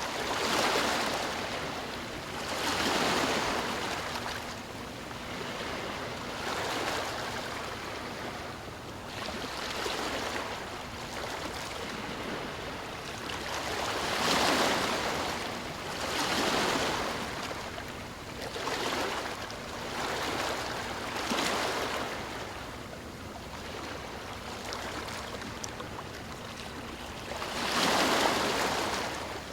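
Sea waves breaking and washing on a shore, one after another every two to three seconds, over a steady hiss of surf.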